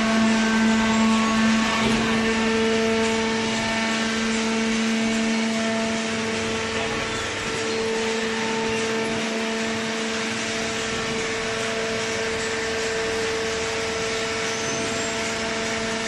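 Hydraulic baling press running: its electric motor and hydraulic pump give a steady hum with a held whine over a hiss, a little louder in the first few seconds.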